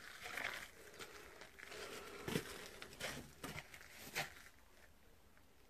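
Faint footsteps crunching and scuffing on dry leaf litter and dirt, a few irregular steps.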